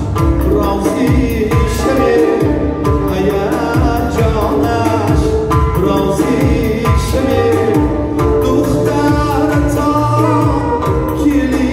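Live amplified band music with a man singing into a microphone, over a steady beat from a large hand-played frame drum, with keyboard and electric guitar.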